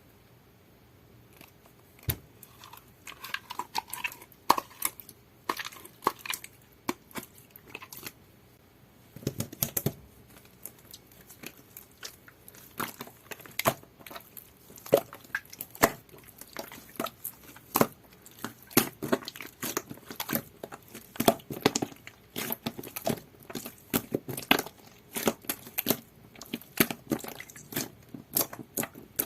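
Jelly-textured slime with clay mixed in, squished and pressed by hand, giving irregular sharp pops and clicks that start about two seconds in and grow denser later.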